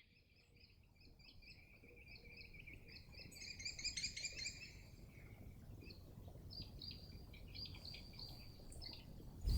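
Small birds chirping in short repeated notes, busiest about four seconds in, over a faint low background hum of outdoor ambience.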